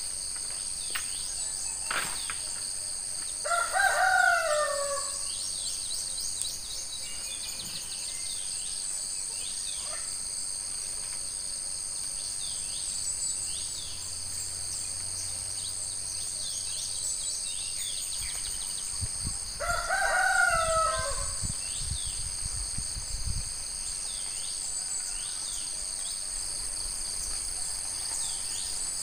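A rooster crows twice, about three seconds in and again near twenty seconds, over a steady high insect buzz.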